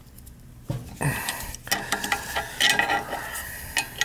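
Irregular metallic clicks and clinks of hand tools and metal parts as a fan is fitted and its set screw tightened onto the motor shaft.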